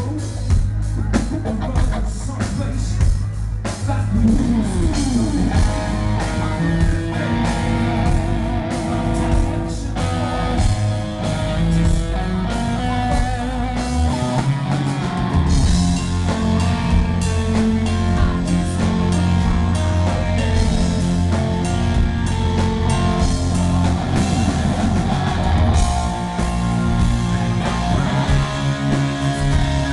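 Live rock band playing through a PA, with drum kit, electric guitar and bass, recorded from the audience.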